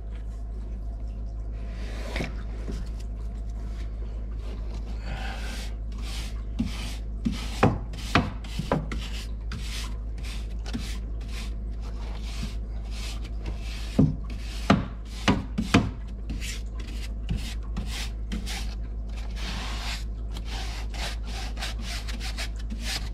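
A stiff hand brush scrubbing across the aluminium fins of an air handler's evaporator coil to clean off the dirt, in quick scratchy strokes that come in irregular runs. A few sharper knocks come along the way, over a steady low hum.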